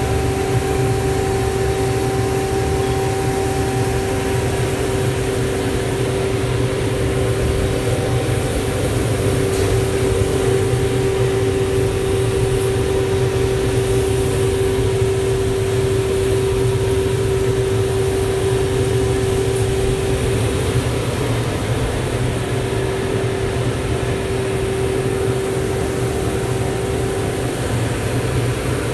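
Vina Roaster commercial drum coffee roaster running: a steady machine hum from its fans and motors, with a constant mid-pitched tone over a low rumble.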